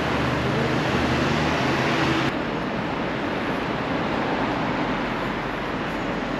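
City street traffic noise with a vehicle engine's low, steady hum that stops abruptly about two seconds in, leaving the general roar of the street.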